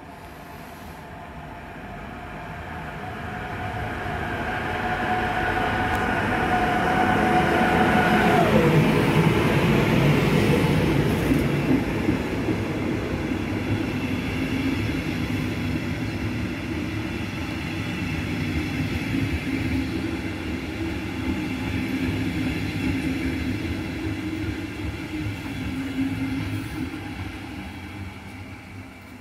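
CFL series 4000 electric locomotive running through the station at the head of a rake of double-deck coaches. Its high whine grows louder and drops sharply in pitch as the locomotive passes, about eight seconds in. The steady rolling of the coaches follows and fades near the end.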